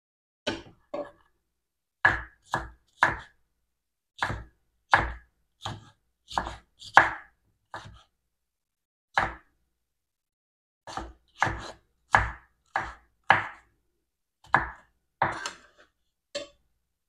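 Chef's knife chopping green bell pepper on a wooden cutting board: a series of sharp knocks of the blade striking the board, at an irregular pace with a short pause around the middle.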